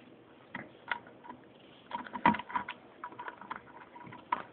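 Lock pick and tension wrench working a small lockbox's pin-tumbler lock: irregular light metallic clicks and scrapes, with one louder knock about two seconds in.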